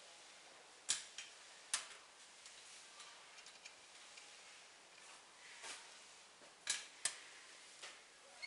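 A handful of sharp, irregularly spaced metallic clicks and light taps from hands working the knobs and bolts on the metal frame of a glue board making machine, over a faint steady hiss; the machine itself is not running.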